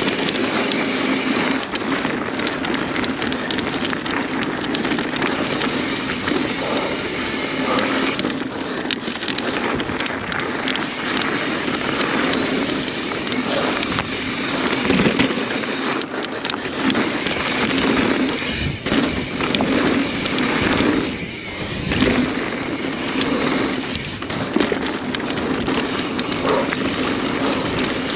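Mountain bike descending a dirt trail at speed: a steady rush of tyre and wind noise, with irregular knocks and rattles from the bike over rough ground.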